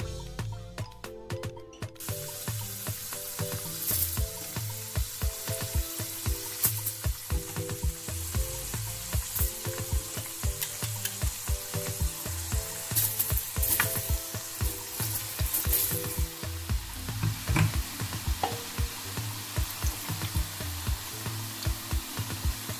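Parboiled potato sticks frying in hot vegetable oil: a loud, dense sizzle that breaks out suddenly about two seconds in as the potatoes go into the oil and keeps on steadily, with background music under it.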